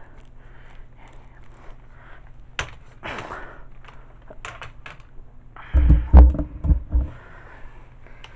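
Handling a plush battery-powered Pablo toy: soft fabric rustles and a few sharp clicks, then a cluster of loud, low thumps about six to seven seconds in as the toy is stood up and pressed on the tile floor.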